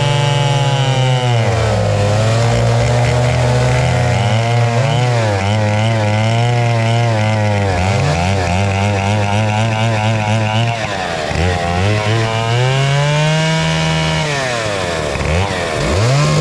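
Two-stroke chainsaw running at high revs, its pitch sagging and climbing back again and again as it comes under load in a cut.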